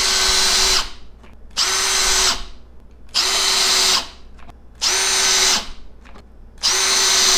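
Makita GPH01 XGT 40V hammer drill driving wood screws at low speed: five short runs of motor whine, each about a second long. The motor stops sharply each time instead of ratcheting, because its electronic clutch shuts it off rather than slipping.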